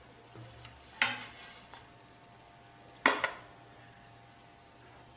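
Kitchen dishes clinking: two sharp clinks about two seconds apart, each ringing briefly, with a faint knock about half a second in.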